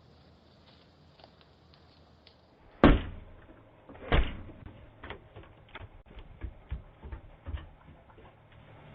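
Two loud thumps about a second and a half apart, followed by a run of lighter, irregular knocks and clicks.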